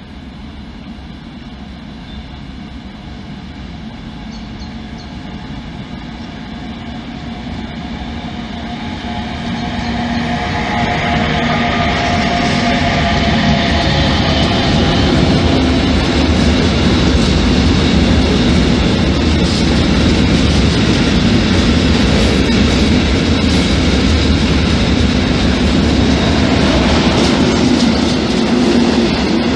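A freight train hauled by an electric locomotive approaches, growing steadily louder over about twelve seconds with a faint high whine over its rumble. It then passes close by, and the wheels on the rails make a loud, steady rumble with some clickety-clack.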